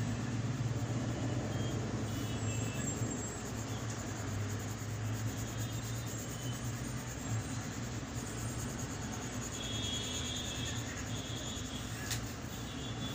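Steady low hum with an even hiss of background noise, with one sharp click near the end.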